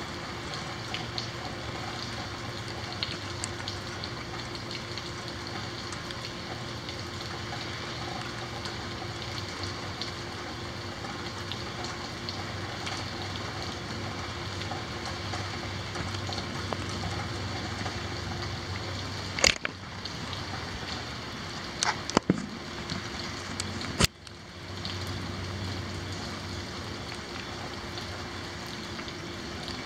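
Steady rain falling and dripping during a night thunderstorm. A few sharp clicks break in about two-thirds of the way through.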